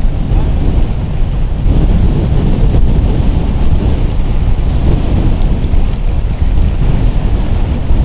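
Strong, gusty wind buffeting the microphone: a loud, uneven, deep rumble with no let-up.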